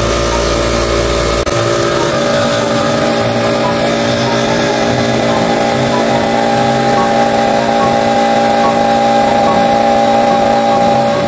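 Bestguard 2 HP oil-lubricated piston air compressor running steadily on its first test. The electric motor and pump hum with a steady set of tones as they fill the tank and pressure climbs toward the automatic cut-off.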